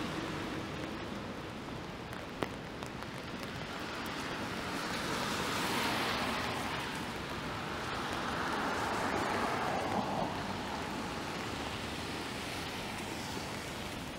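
Cars passing on a rain-soaked street, their tyres hissing on the wet pavement, swelling and fading about five and nine seconds in over steady rain. A single sharp tick about two and a half seconds in.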